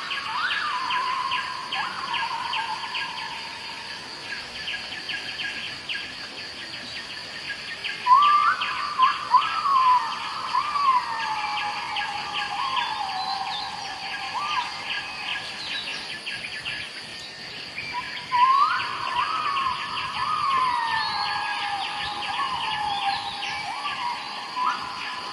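Birds calling in bursts of repeated notes that jump up and slide down in pitch, over a steady, fast insect-like trill.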